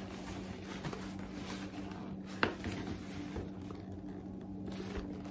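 Quiet handling of a vintage Bally handbag as it is held open and turned, with one sharp click about two and a half seconds in, over a steady low hum.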